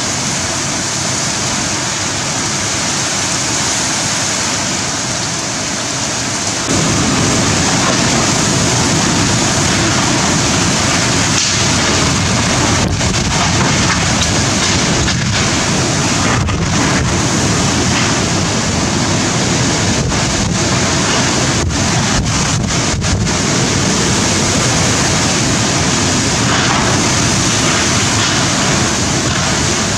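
Super Cyclone Amphan's wind and very heavy rain: a dense, steady rush of wind-driven rain. About seven seconds in it grows louder and deeper and stays so.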